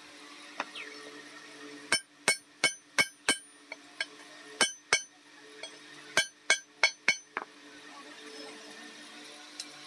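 Hand hammer striking a red-hot steel blade on an anvil, with the steel ringing after each blow. The blows come in quick runs of about three a second: five, then two, then five more.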